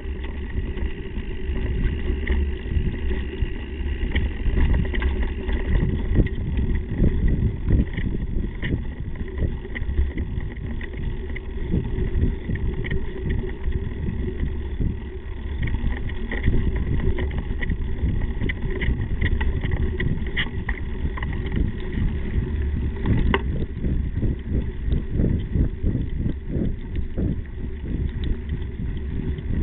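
Slingshot Ripper mountain bike ridden over a dirt trail: a steady low rumble of the tyres and frame vibration, picked up through the frame-mounted camera, with frequent small clicks and rattles from bumps.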